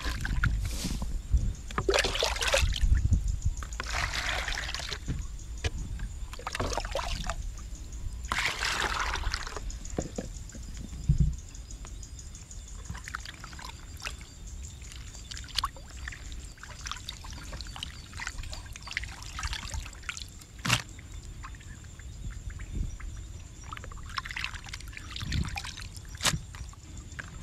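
Water splashing and sloshing in a plastic bowl as squid pieces are rinsed and squeezed by hand, in several splashy bursts of about a second each, with scattered small clicks and knocks of the bowls between them.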